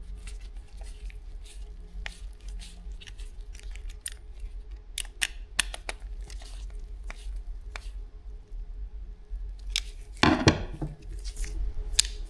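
Small clicks and taps of plastic door-handle parts and a screwdriver being handled while the hinge is screwed in with its original screw, with a louder, short rasping squeak about ten seconds in.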